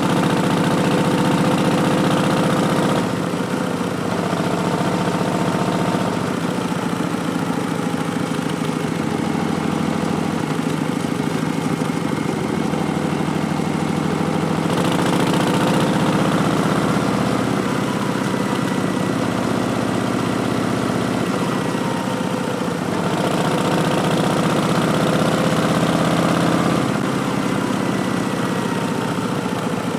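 Harley-Davidson Street Bob's Milwaukee-Eight 107 V-twin running through Vance & Hines Twin Slash slip-on mufflers. Its note changes with the throttle several times: it drops about three seconds in, swells again around the middle, and drops once more near the end.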